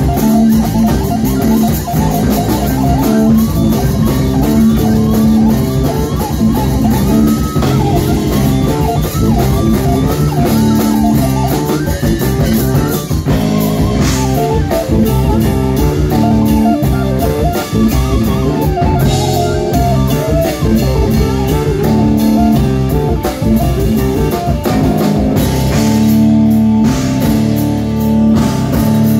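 Instrumental band playing live and loud: drum kit, electric bass guitar and keyboards, with no vocals.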